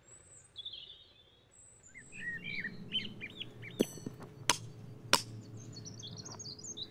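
Birds chirping and singing. Near the middle come three sharp knocks about two-thirds of a second apart: a rubber mallet striking a steel rebar marker stake sideways to loosen it from the ground.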